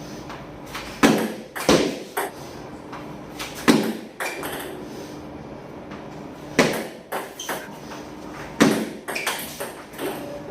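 Table tennis ball clicking sharply off bat and table during drill play, the hits mostly coming in pairs about half a second apart with pauses of one to three seconds between them.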